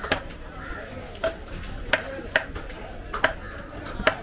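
A large knife chopping through tuna and striking a wooden chopping block: about seven sharp, irregular knocks, two of them in quick succession near the end.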